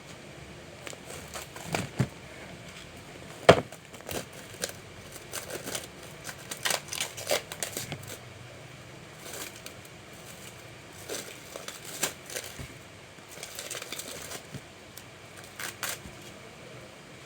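Plastic packaging being crinkled and torn open by hand, an irregular run of crackles and rustles, with one sharp knock about three and a half seconds in.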